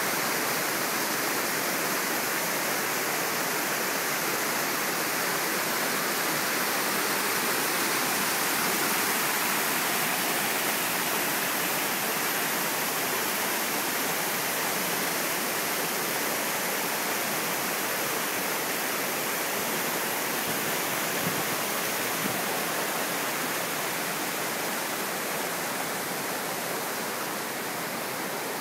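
Waterfall, a steady, unbroken rush of falling and splashing water.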